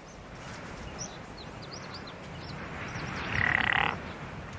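A single short, raspy animal call a little over three seconds in, over a faint steady hiss, with a few faint high chirps earlier.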